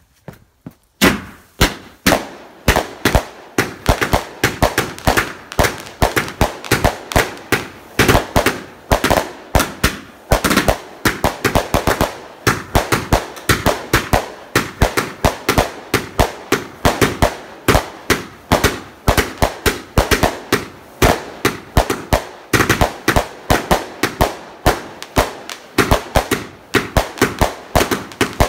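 Zeus Quantum 1.4G firework cake firing as a finale barrage: after about a second, a rapid, steady run of sharp, punchy bangs, a few a second, as its shots launch and burst overhead.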